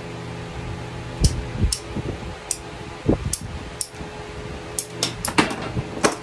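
Hand PVC pipe cutter working through a length of PVC pipe: a series of short sharp clicks and knocks as the blade is squeezed through and the pipe snaps apart, over a steady low hum.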